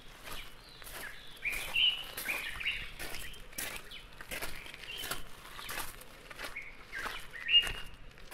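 Birds chirping in a rural ambience: many short, sharp calls with brief notes that slide up or down, the loudest about seven and a half seconds in.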